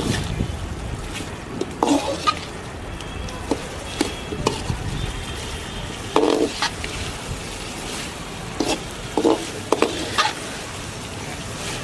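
Chicken masala frying in a pan with a steady sizzle while it is stirred, with short scrapes and knocks against the pan every second or two as the gravy cooks down dry.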